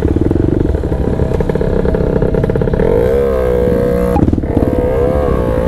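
Dirt bike engine running close up with rapid firing pulses. From about three seconds in the throttle is worked up and down, so the pitch rises and falls.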